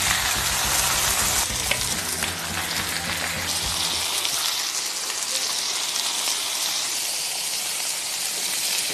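Beef steaks and fried eggs sizzling steadily in butter and oil on hot iron steak plates.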